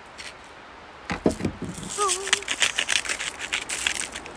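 Hand-held spice grinder twisted over raw fish fillets: a fast run of dry, crunching clicks starting about a second in.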